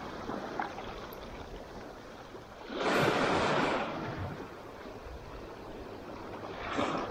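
Small sea waves breaking and washing up the sandy, rocky shore: a steady wash with one louder surge about three seconds in and another near the end.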